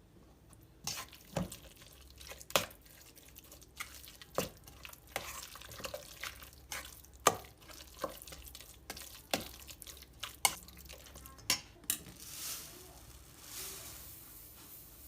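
Irregular sharp clicks and knocks of hard objects, roughly one a second, with a short stretch of hiss near the end.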